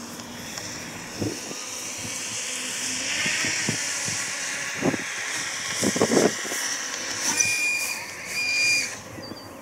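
Electric motor drive of a radio-controlled Cessna 336 Skymaster model taxiing over bumpy grass: a high whine that rises and falls in pitch with the throttle, with a few knocks as the landing gear hits the rough ground. Two short high tones sound near the end.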